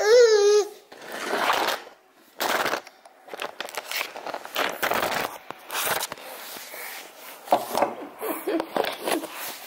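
A baby's cry breaks off in the first second, followed by irregular rustling, scraping and crackling of the camera being handled and moved right at the microphone.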